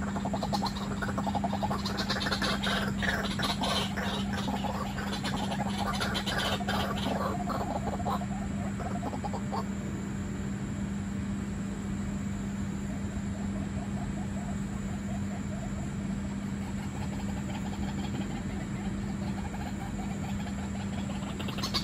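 White-breasted waterhens calling: fast, rattling croaks, busiest in the first half and thinning out later, over a steady low hum.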